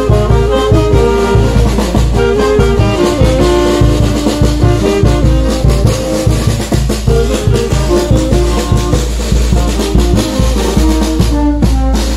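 Live brass band playing: trumpets carry a stepping melody over a bass drum and snare drum keeping a steady beat.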